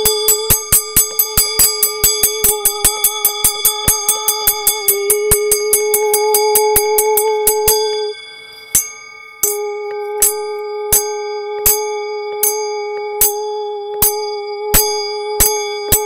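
A steady pitched tone with a higher overtone, under sharp regular clicks at about five a second. Just past halfway the tone and clicks drop out for about a second. They then resume with slower clicks, about one and a half a second, which speed up again near the end.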